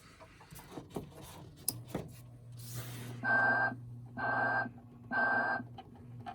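Telco Sleeping Santa animated electric figure starting up: a few clicks, then a low steady hum sets in, followed by three short tones about a second apart.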